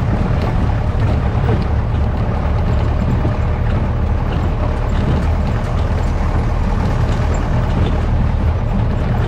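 Off-road vehicle driving along a rough, muddy dirt track, heard from on board: a steady low rumble of engine and road noise.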